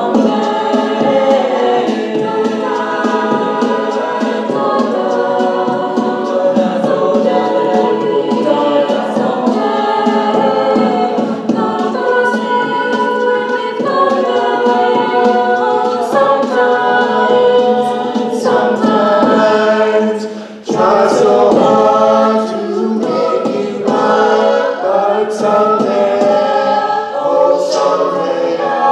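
Mixed a cappella group singing loud harmonized chords with no clear lyrics, several voices in parts. A few sharp percussive hits come in the second half, and the singing briefly drops out about two-thirds of the way through.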